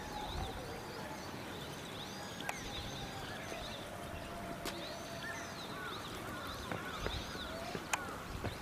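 Outdoor ambience of small birds chirping, short high arched notes repeating over and over, with a faint steady hum that fades out about two-thirds of the way through and a few sharp clicks.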